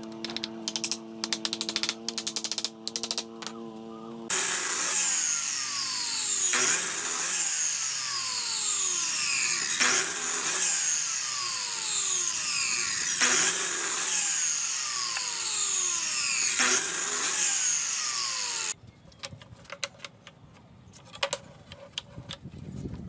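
A hammer taps nails into pallet-wood cross pieces over a steady hum. Then a miter saw runs loud for about fourteen seconds, biting through pine blocks about every three seconds. Near the end it gives way to light knocks of wooden blocks being set down.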